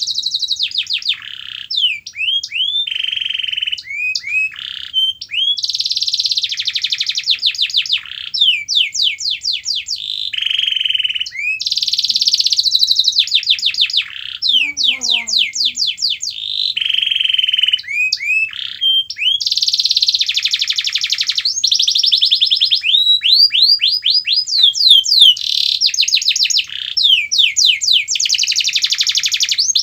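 Domestic canary singing a long, continuous song. Fast trills of repeated down-sweeping notes alternate with buzzy rolled phrases, with almost no pauses between them.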